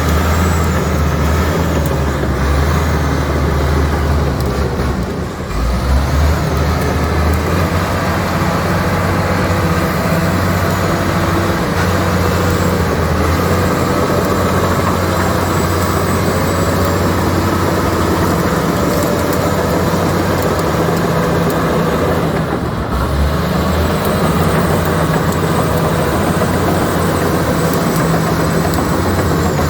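Komatsu D85ESS bulldozer's diesel engine running steadily under work. The engine note dips and shifts briefly twice: about five seconds in and again about three-quarters of the way through.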